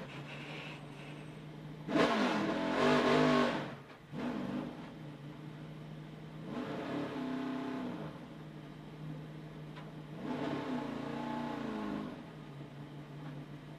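NASCAR stock car's V8 engine running at low speed, heard from on board, with three blips of the throttle: a loud one about two seconds in, then two softer ones later on. The car is crash-damaged and being driven slowly to the garage.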